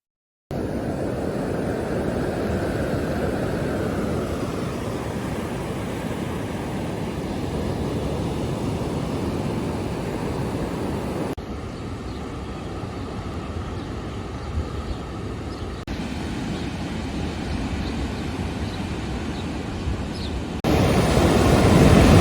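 Steady rushing of beach surf and wind, heaviest in the low end, with no voice. It cuts abruptly to a new take three times, about halfway, about three-quarters of the way and near the end, and the last take is the loudest.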